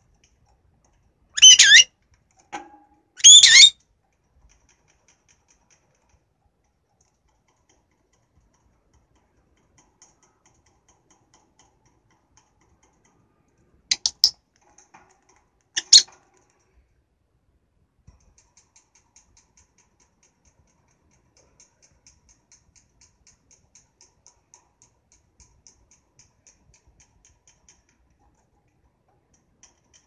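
Pet lovebird squawking: two loud, short calls in the first few seconds and two more around the middle, with faint rapid clicking in between.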